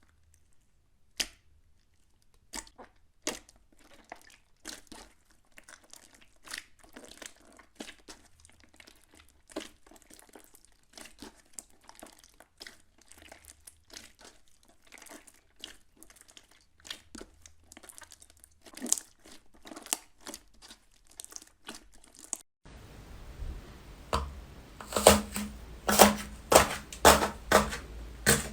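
Slime worked by hand, crackling and popping in many small uneven snaps. Near the end the popping turns louder and sharper, about two pops a second.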